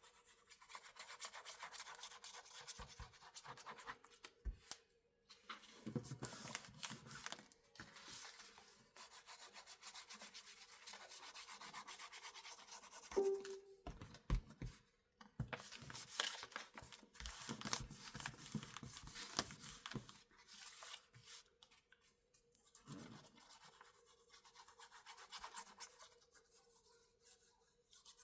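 Bookbinding tool rubbing and scraping across paper in repeated strokes with short pauses between them. A sharp knock comes about 13 seconds in.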